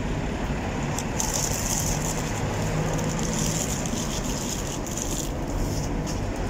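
Steady low rumble of road traffic, with a faint high hiss from about a second in until shortly before the end.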